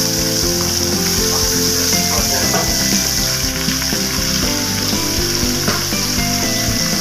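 Raw pork spareribs sizzling in hot oil in a wide pan, a steady hiss, with background music playing over it.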